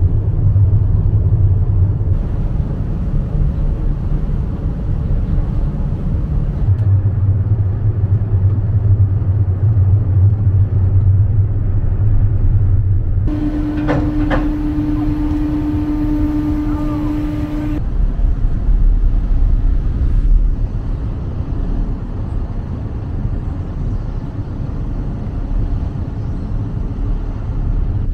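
Low, steady rumble of a ferry's engines heard on board. For a few seconds about halfway through, a steady mid-pitched tone with overtones sounds over it, along with a few sharp clicks.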